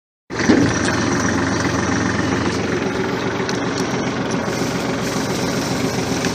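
Massey Ferguson 1433 compact tractor's diesel engine running steadily under load as it drags a chained log on its raised three-point hitch.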